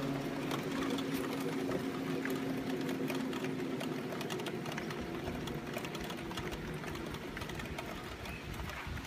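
A low, steady droning hum made of several held tones, slowly fading over several seconds, with faint scattered clicks in the background. It is the kind of unexplained 'sky sound' hum whose source cannot be seen.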